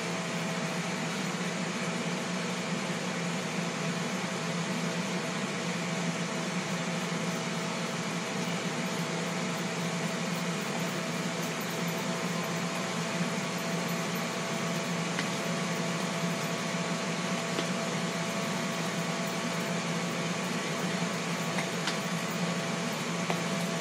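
Steady whir and hum of a Ninja Foodi XL countertop grill's fan running while it air-fries, with a constant low hum and a faint steady tone over it.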